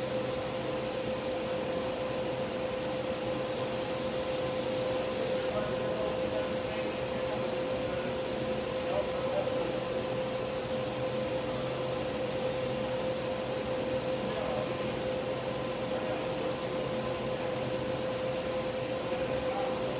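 Steady machine hum with a constant pitched tone, and a burst of high hiss from about three and a half to five and a half seconds in.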